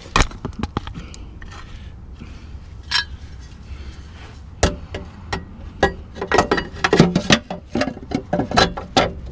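Irregular metallic clicks and knocks of hand tools working a bolt and nut on a car's underbody. They come sparsely at first, then thick and fast from about halfway through.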